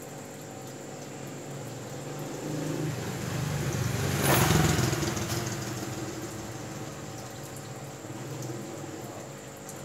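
Aquarium air stones bubbling over a steady pump hum, with a louder rushing sound that swells to a peak about halfway through and then fades away.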